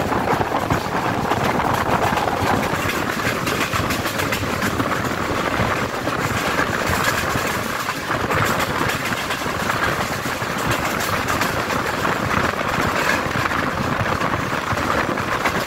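Fareed Express passenger coaches running along the track, heard from an open coach doorway: a steady rumble with continual clatter from the wheels on the rails.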